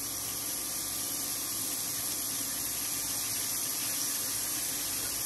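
Carrots and celery sizzling in hot oil in an enamelled cast-iron Dutch oven, a steady hiss, with water running from the kitchen tap into the sink.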